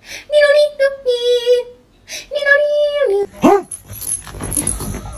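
A high voice singing a few held notes with pauses between them. About three seconds in comes a short squeal that rises and falls, followed by rough, noisy sound.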